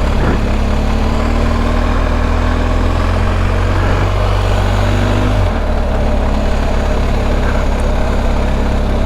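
Motorcycle engine running steadily at low speed with a deep hum, its note shifting about five and a half seconds in.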